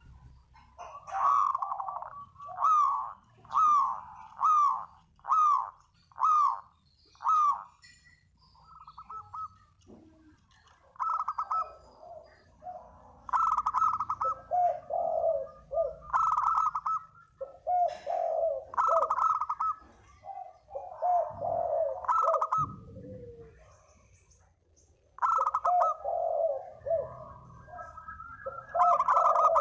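Spotted dove cooing a lure call: a run of about seven evenly spaced short coos, then repeated two-part coo phrases with short pauses between them.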